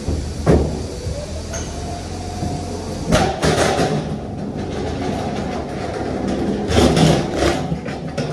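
Manual pallet jack rolling across the wooden floor of a lorry trailer: its wheels rumble and rattle, with a sharp knock about half a second in and louder clattering around three seconds and again near seven seconds in.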